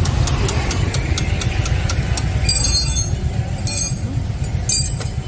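A steady low engine rumble, with quick regular ticking in the first second and a half and three short harsh rasps in the second half.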